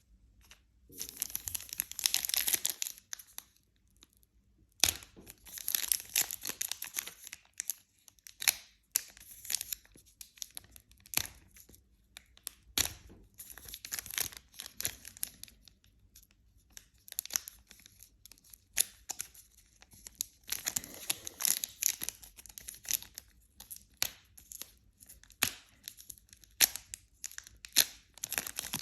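Trading card pack wrapper being torn open and crinkled, in repeated bursts of rustling and tearing with sharp clicks in between.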